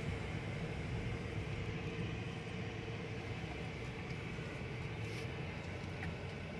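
Steady low rumble of engine and tyre noise heard inside the cab of a 2021 Ford F-150 with the 5.0-litre V8, rolling at low speed through a turn.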